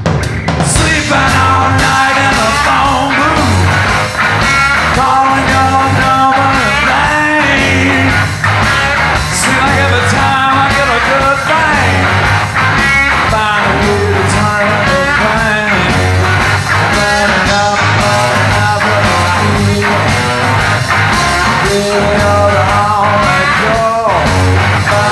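Rock band playing: an electric guitar lead bending and wavering over bass and drums.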